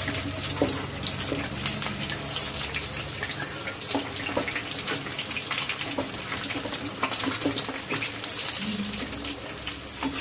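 Kuttu-flour-battered potato and paneer sandwiches deep-frying in hot oil in a kadhai: a steady sizzle with fine crackling throughout.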